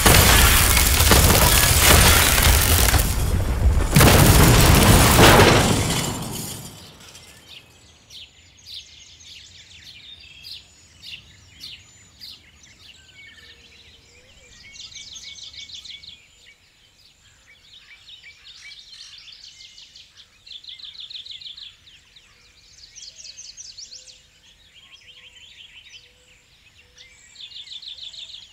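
A loud, harsh crashing rumble for about six seconds that dies away, followed by scattered bird chirps and repeated high, rapid trills.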